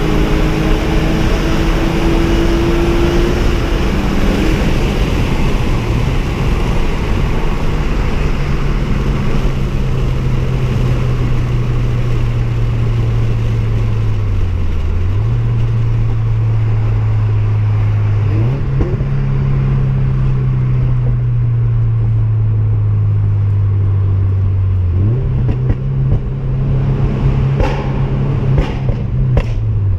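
Car engine running under way with road noise; its pitch mostly holds steady, with a brief dip and a few small step-ups. A few sharp clicks come near the end.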